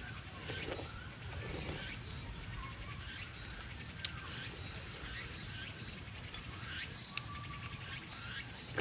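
Quiet eating sounds of soup being spooned from an earthenware bowl and chewed, with a couple of sharp spoon clicks, over steady chirping of crickets and other forest insects.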